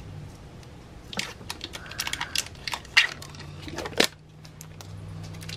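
Kitchen counter food prep: crinkling plastic wrapping and a run of small clicks and knocks as cheese is handled and set on a plate, with two louder clicks about three and four seconds in. A low steady hum runs underneath.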